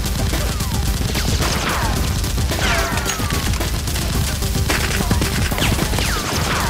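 Rapid, continuous automatic gunfire, a realistic firearm sound effect laid over the Nerf blaster action, with falling whistles every second or two like bullets whizzing past.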